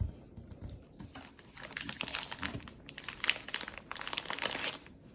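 Plastic snack wrapper crinkling as it is handled, in dense crackly spurts from about one and a half seconds in until just before the end.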